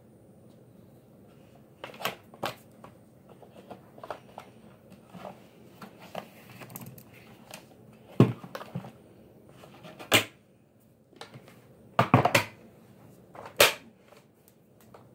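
Scattered knocks and clacks of objects being handled, at irregular intervals, some sharp and loud, the loudest a quick cluster a little past the middle.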